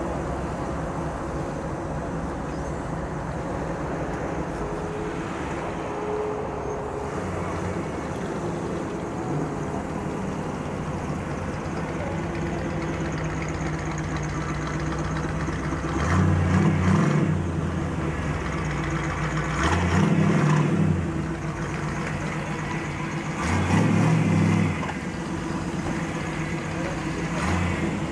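Chevrolet SS car's engine running at idle, blipped three times in the second half, each rev lasting about a second before dropping back to idle.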